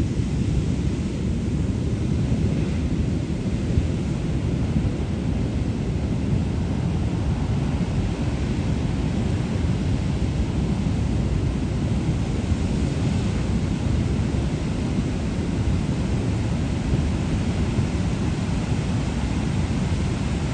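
Heavy surf, waves over 20 feet, breaking and washing ashore as a steady, unbroken low rumble of ocean noise.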